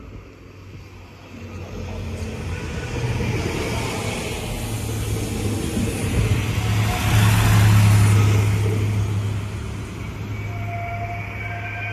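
Arriva LINT 41 diesel multiple unit pulling into the station. Its engine hum and wheel-on-rail noise build to their loudest as it runs past close by about seven to eight seconds in, then ease as it slows at the platform. A steady high-pitched whine joins near the end.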